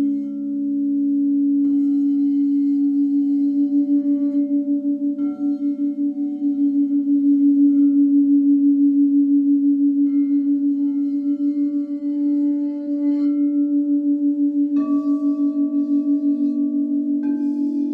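Crystal singing bowls ringing together in a sustained low chord whose loudness pulses in a steady beat. New bowls are struck several times, adding higher ringing tones, most plainly about fifteen and seventeen seconds in.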